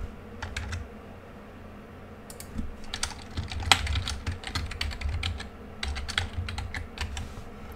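Typing on a computer keyboard: a few keystrokes, a pause of about two seconds, then a quick run of keystrokes.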